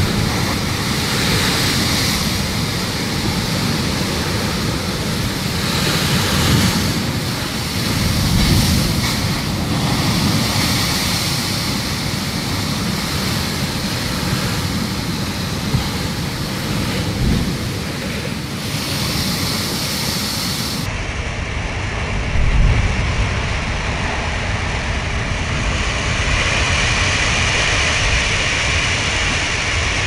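Heavy storm surf crashing against rocky sea cliffs: a continuous rush of breaking waves and spray that swells with each big breaker, loudest about three quarters of the way through.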